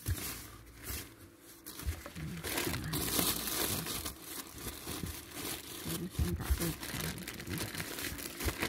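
Packaging crinkling and rustling in irregular bursts close to the microphone as things are rummaged through, loudest about three seconds in, with a few soft low knocks.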